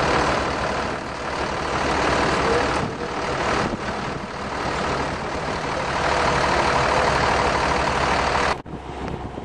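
Strong, gusty wind buffeting the microphone, swelling and easing: the storm's inflow wind picking up. The sound cuts off suddenly near the end.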